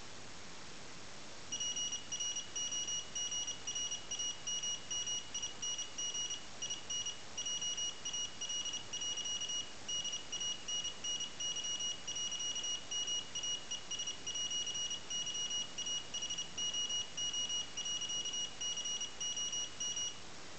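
A beeper driven from one digital output of a PIC 18F4550 microcontroller sends Morse code: a high-pitched tone keyed on and off in short dots and longer dashes. It starts about a second and a half in and stops shortly before the end.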